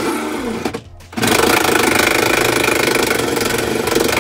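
Kobalt cordless impact tool hammering on the rusted bolts of a truck's side-step bar bracket, zipping them loose. One burst stops about a second in, then after a short pause a longer, steady burst runs on.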